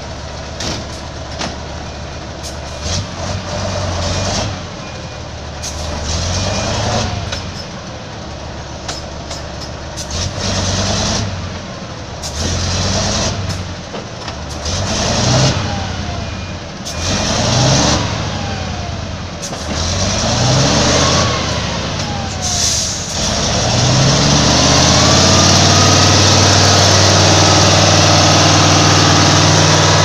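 Diesel engine of a heavy log-loaded timber truck revving up again and again in short rises, about every two to three seconds, with scattered sharp clicks and knocks, as it fights for traction in deep mud. From about three-quarters of the way in the engine is held at high revs steadily.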